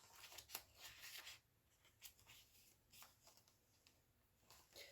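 Faint rustling and soft clicks of paper pages being handled and turned in a handmade junk journal. They are densest in the first second and a half, then thin to a few scattered light ticks.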